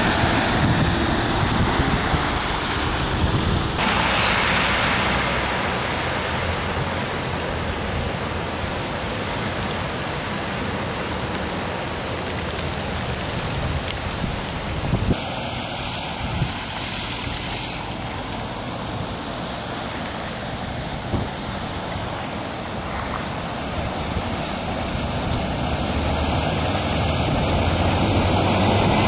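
Cars and trucks driving through a flooded street, their tyres throwing water out to the sides in a steady rushing splash, with wind buffeting the microphone. A city bus passes close near the end, and the sound swells.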